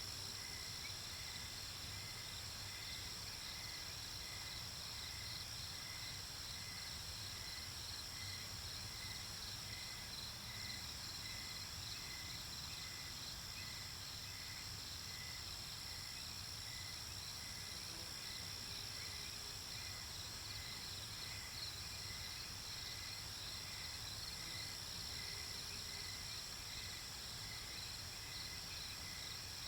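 Night-time insect chorus: crickets chirping steadily in overlapping high trills, with one chirp pulsing at an even pace of about one and a half a second.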